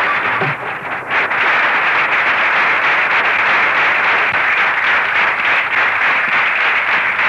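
Audience applause: dense, steady clapping that builds up about a second in.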